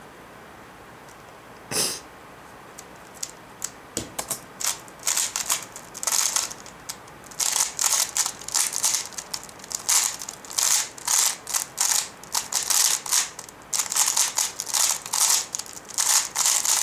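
Rubik's Cube being turned fast in a speedsolve: the plastic layers click and clack in quick flurries. Scattered clicks and a single louder knock about two seconds in, then near-continuous turning from about four seconds in.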